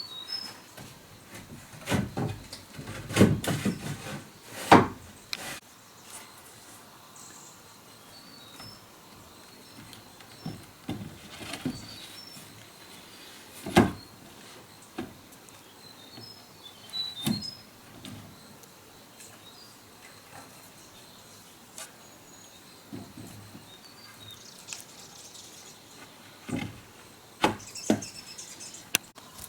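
Irregular knocks and thumps from building work, a few of them much louder than the rest, with small birds chirping now and then in the background.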